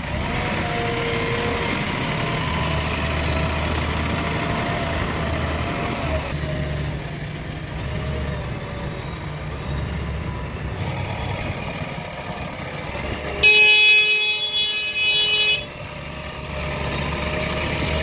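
JCB 3DX backhoe loader's diesel engine running steadily as the machine works. About three-quarters of the way through, a vehicle horn sounds once for about two seconds.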